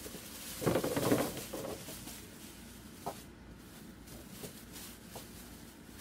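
A plastic bag rustling and crinkling as fingerling potatoes are tipped out of it into a bucket, loudest about a second in, followed by a few faint knocks.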